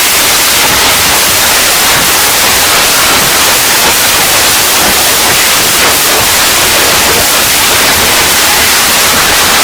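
Loud, steady static hiss, like white noise, that cuts in suddenly out of dead silence and holds at one level.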